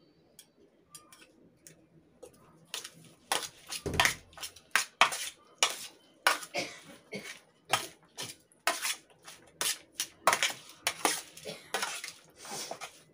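A metal spoon mixing diced tomatoes and onion in a metal baking tray, clinking and scraping against the tray in irregular strokes, several a second, starting about two and a half seconds in. One duller knock about four seconds in.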